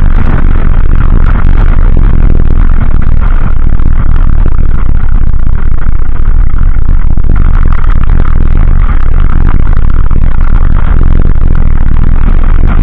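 Constant loud, distorted rumble of a Dualtron Ultra electric scooter riding fast over a gravel track: wind buffeting the stem-mounted camera and tyres running over loose stones, with steady clatter from the ride.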